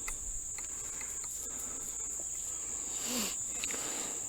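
A steady, high-pitched chorus of insects, with a few faint ticks and a brief rustle about three seconds in.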